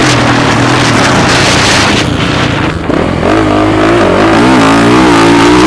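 Motocross bike engine running loud. It eases off briefly about two seconds in, then revs up and down with a wavering pitch.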